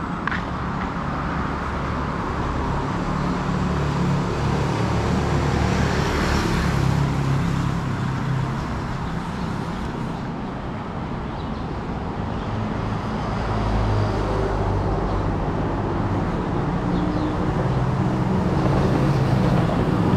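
City road traffic: vehicle engines running and cars passing, with a low engine hum under the tyre noise. The noise swells and eases several times as vehicles go by.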